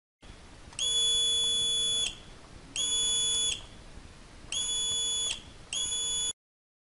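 Digital multimeter's continuity buzzer beeping four times, in uneven beeps of about half a second to a second and a half, as the test probes touch the leads of a newly soldered 500 mA slow-blow fuse: the beep shows the fuse conducts.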